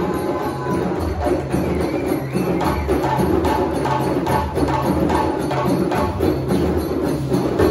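A large ensemble of djembe drums playing a fast, steady rhythm together.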